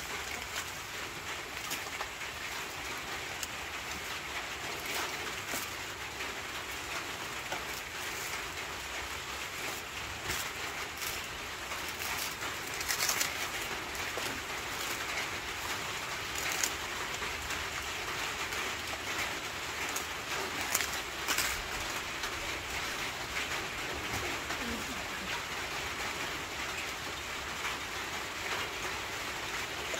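Banana leaves rustling and crackling as they are peeled open by hand from a parcel of fish cooked in them, with sharper crinkles now and then.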